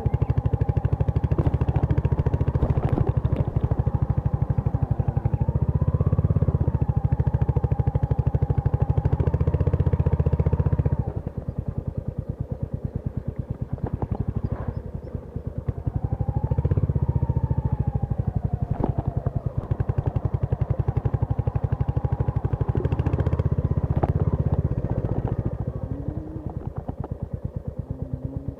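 Royal Enfield Hunter 350's single-cylinder engine running while riding, a fast even pulsing exhaust. The engine is under throttle, eases off about eleven seconds in, pulls again a few seconds later, and eases off again near the end.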